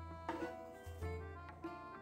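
Background music: a plucked string instrument playing notes over a low sustained bass.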